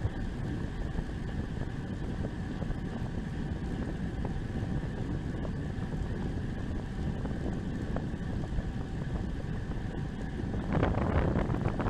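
Steady wind noise buffeting the microphone of a camera riding along on a bicycle, with a louder rush of noise near the end.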